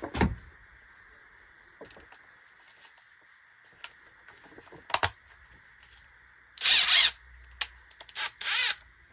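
Scattered mechanical clicks from a device being handled and worked on, with a sharp click about halfway through and two short rattling bursts near the end, the first of them the loudest.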